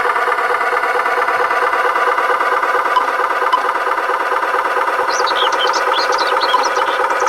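A toy truck's motor running with a steady buzzing drone. Short high squeaks come near the end.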